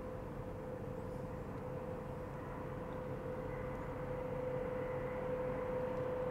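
Distant vehicle approaching: a low rumble slowly growing louder under a steady mid-pitched hum.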